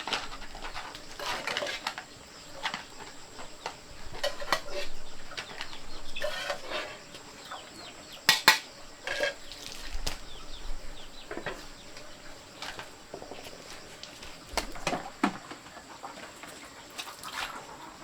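Scattered clinks and knocks like dishes or utensils being handled, with chickens clucking now and then.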